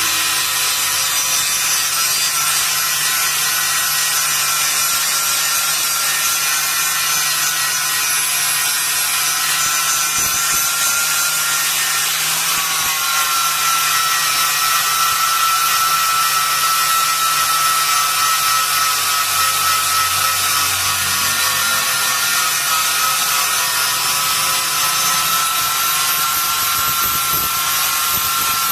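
Small electric power tool running steadily on metalwork, a continuous high whine over a dense hiss that barely changes.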